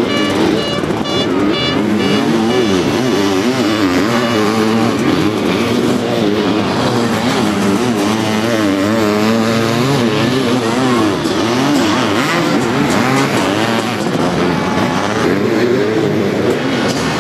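Several sidecar motocross outfits racing on a dirt track, their engines revving hard, the pitch rising and falling again and again as they accelerate and back off through the turns and over the jumps.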